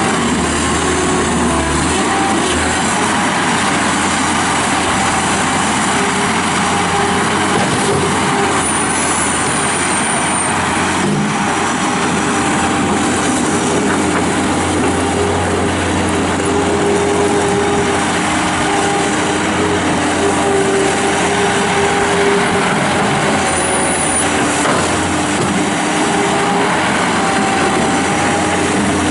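1998 New Holland LX665 turbo diesel skid steer loader running at working speed, a loud steady engine drone with a faint whine that comes and goes.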